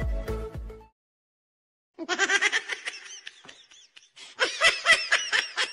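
A person laughing hard in a rapid run of high-pitched bursts that starts about two seconds in and gets louder and faster after a short dip. Just before, the end of a music intro stops, leaving about a second of silence.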